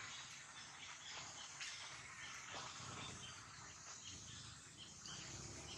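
Faint outdoor ambience: a steady hiss of insects with scattered short chirps.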